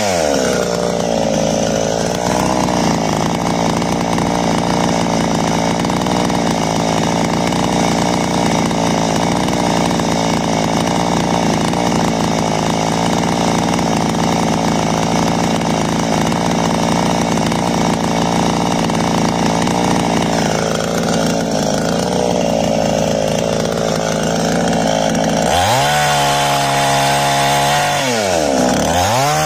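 Piranha two-stroke petrol chainsaw cutting through a log. The engine note drops as the chain bites into the wood and then holds steady under load for about twenty seconds. In the last few seconds the saw comes free and is revved up and down twice.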